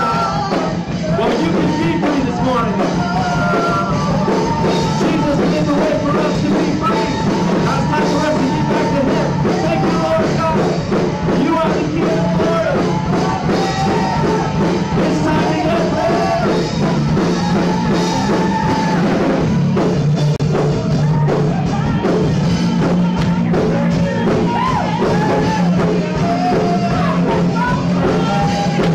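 Live contemporary worship music: a band with keyboard, guitar and drums playing steadily while vocalists sing the melody into microphones.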